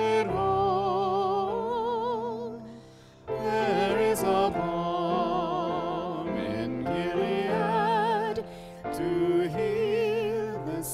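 A hymn sung with vibrato by a few voices over sustained instrumental accompaniment, pausing briefly between phrases about three seconds in.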